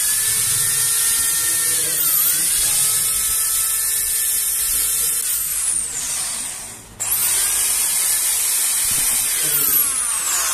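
Bosch GSB 501 electric impact drill, freshly reassembled, run free in the hand for a test: the motor whines at full speed, dips briefly about two seconds in, winds down and stops about seven seconds in, then starts straight up again and begins winding down near the end.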